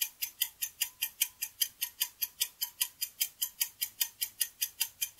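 Clock-tick sound effect, fast and even at about five ticks a second.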